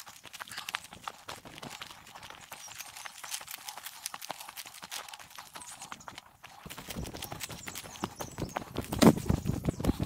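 Quick, dense patter of running footsteps and paws on a forest trail, from a runner towed by two harnessed huskies on leads. It grows louder and heavier from about seven seconds in, peaking near the end.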